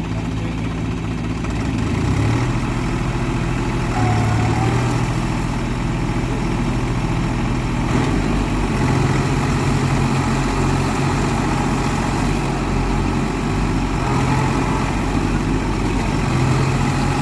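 Tractor diesel engine running steadily, its speed stepping up and down several times.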